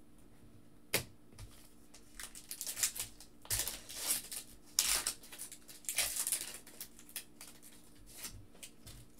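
Foil trading-card pack wrappers being torn open and crinkled in the hands, in irregular crackling bursts that are loudest in the middle, after a single sharp click about a second in.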